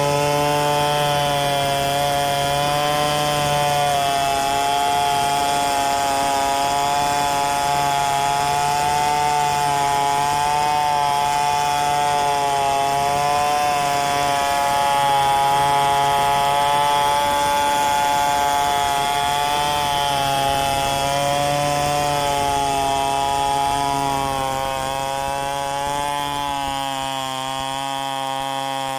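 Stihl chainsaw running at high revs and cutting through gmelina wood, its pitch wavering slightly with the load. Near the end it gets a little quieter and thinner.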